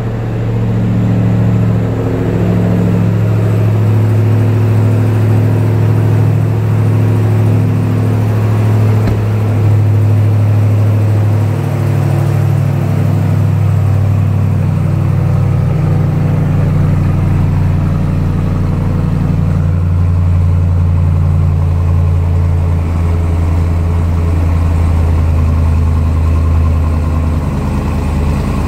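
Ram 1500 TRX's 6.2-litre supercharged Hemi V8 running at a loud, steady fast idle just after start-up, with a deep low exhaust note through the quad tailpipes. This is the raised idle of a freshly started engine, which calms down after about a minute.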